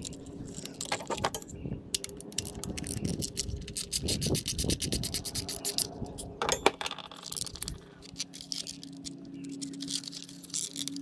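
Quarter-inch ratchet clicking in quick runs as a 10 mm ignition-coil hold-down bolt is turned, with scraping and small clicks from handling the coils and their plastic connectors.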